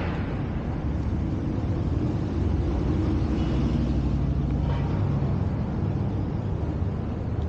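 City street traffic, with a large motor vehicle's engine running close by; the low rumble swells a couple of seconds in.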